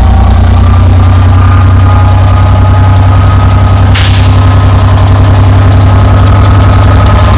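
Class 67 diesel locomotive's EMD V12 two-stroke engine idling with a loud, steady low drone, and a short hiss of released air about four seconds in.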